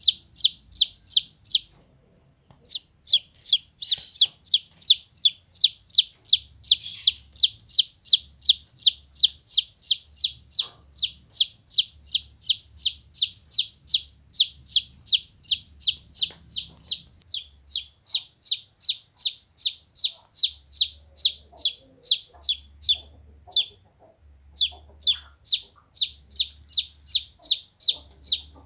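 Domestic chicken chick peeping loudly and repeatedly, about three peeps a second. Each peep falls in pitch. There is a short break about two seconds in and a brief pause near the end.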